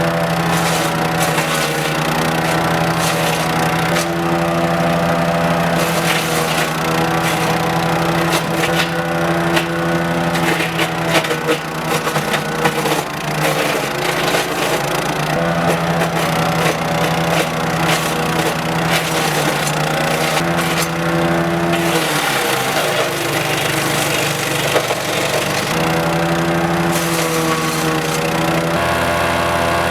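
Engine-driven wood chipper running steadily, with sharp clicks and knocks throughout as it chips material. Its pitch shifts every few seconds.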